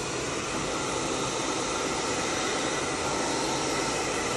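Handheld hair dryer running steadily, blowing a constant stream of air with a faint motor whine.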